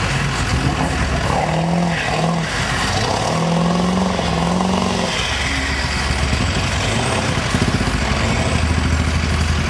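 Lifted Ford F-250 Super Duty on tractor tires running through a deep mud pit, its engine revving under load while the tires churn through water and mud. The engine note rises and falls between about one and a half and five seconds in.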